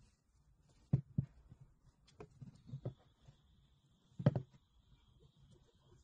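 Plastic clicks and knocks from the housing of a small rechargeable desk fan being handled and its head tilted on its stand, with the loudest knock a little past the middle.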